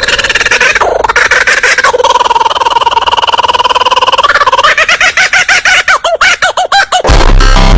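A bird calling loudly: a long held call with a wavering pitch, then a fast run of rising-and-falling notes, about five a second.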